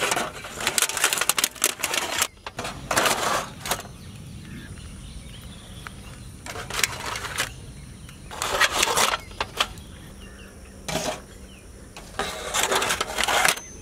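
Aluminium foil trays crinkling and rattling in repeated short bursts, about six times, as bread pizza slices are lifted into them with a metal spatula.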